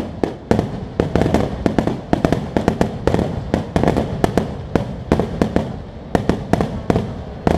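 Fireworks going off in a rapid, continuous barrage: sharp bangs and cracks several times a second, with hardly a pause.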